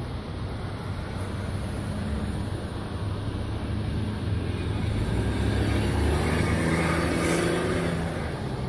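Motor vehicle engine running nearby, a steady low hum that grows louder about two-thirds of the way through and then eases off.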